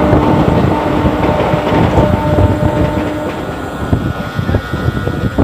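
Running noise of a moving electric local train heard from an open coach doorway: a steady, loud rumble and rattle of the wheels on the track. A steady hum runs under it and fades out about three seconds in.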